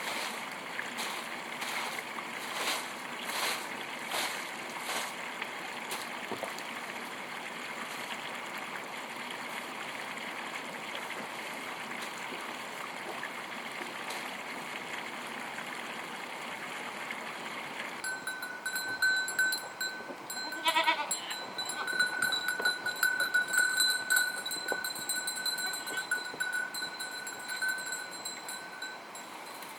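Goats bleating, one call standing out about two-thirds of the way in, over a steady high-pitched whine. In the first few seconds there is a run of evenly repeated scraping strokes.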